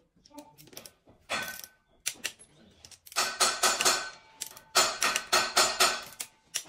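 Ratchet wrench tightening the camshaft bearing cap bolts on a V8 diesel cylinder head, heard as three runs of rapid clicking.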